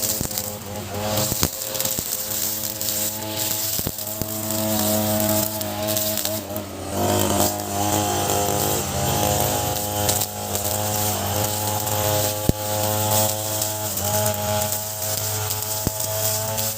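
Ogawa 26cc two-stroke brush cutter engine running at high revs while cutting grass with a trimmer plate and 3.0 mm nylon line, its pitch wavering slightly under load. A few sharp clicks stand out over it.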